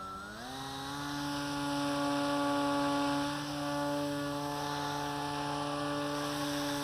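Electric motor and propeller of an Assassin RC plane running up while held in the hand before a throw launch. The whine steps up in pitch about half a second in, then holds steady at high throttle.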